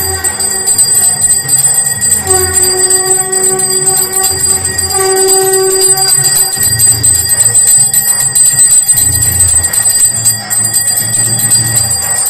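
Brass hand bell rung steadily during aarti, a bright continuous ringing with a low pulsing beat underneath.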